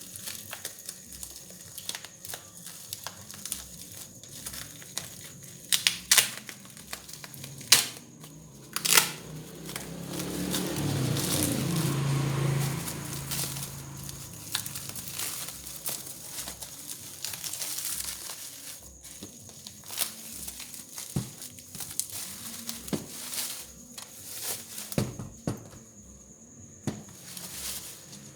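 Handling noise: scattered clicks and knocks, with a louder crinkling rustle about ten to thirteen seconds in.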